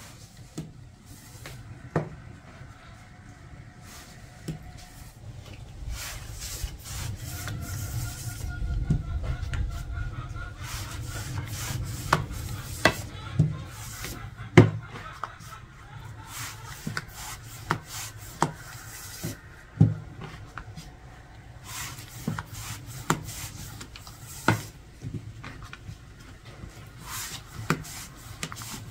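Food being worked by hand on a wooden surface: rubbing and scraping, with sharp knocks scattered throughout and a denser stretch of rubbing about a third of the way in.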